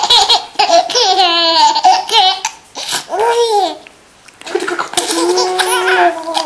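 Young child laughing hard while being tickled, in several high-pitched bursts with a brief pause about four seconds in.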